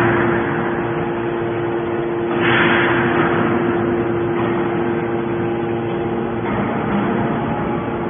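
Hydraulic scrap-metal baler running: a steady hum from its hydraulic power unit, with a rush of hiss lasting about a second, starting about two and a half seconds in, as the ram works.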